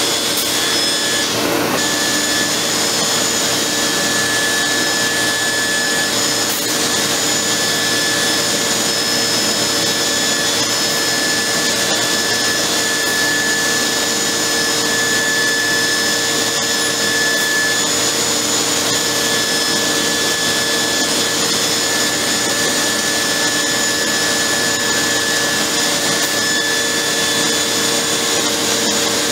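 Biesse Rover 15 CNC machining center running: a steady, loud machine noise with several held whining tones over a constant hiss, and a brief rising sweep about a second and a half in.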